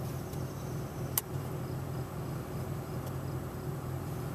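A 2005 Pontiac Sunfire's engine idles steadily with the electric radiator cooling fan running, heard from inside the car. The fan is working again now that its blown fuse has been replaced, and it is cooling the overheated engine. There is a single short click about a second in.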